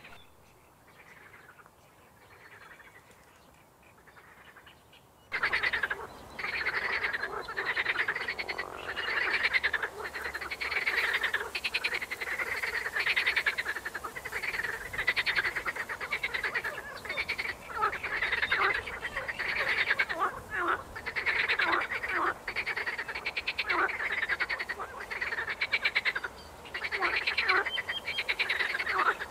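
A chorus of many frogs croaking in fast, rattling pulsed calls. It is faint for the first five seconds or so, then loud calling starts suddenly and keeps on dense and overlapping.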